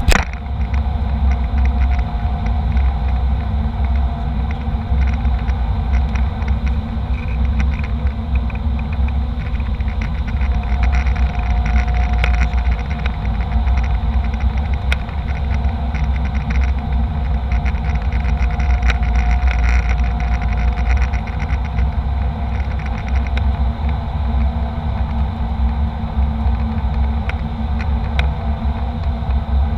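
Steady cabin noise of a jet airliner in flight: a loud low rumble of engines and airflow, with a faint steady whine on top.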